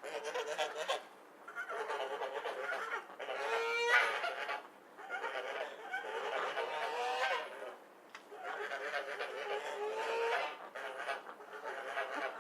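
A group of ducks squabbling: bouts of overlapping harsh quacks and squawks, each lasting a second or two, broken by short lulls.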